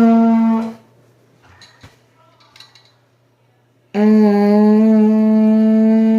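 Trombone playing two sustained brassy notes: a short one that stops just under a second in, then, after a near-quiet gap with a few faint clicks, a long steady note from about four seconds in.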